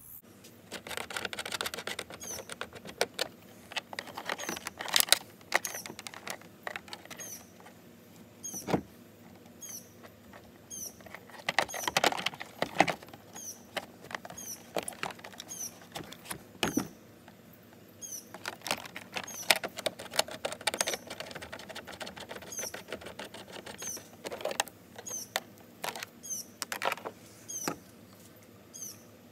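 Hands working a kayak fish finder's plastic mount and cables: irregular plastic clicks, knocks and rubbing. Behind it, a faint high chirp repeats about once a second.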